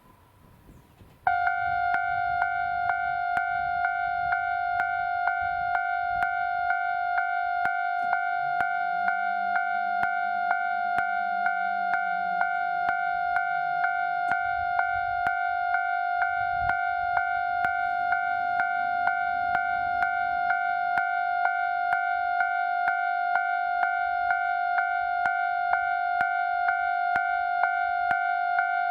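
Japanese railway level-crossing warning alarm starting suddenly about a second in and ringing on in a steady, rapid rhythm of bell-like strikes, signalling an approaching train.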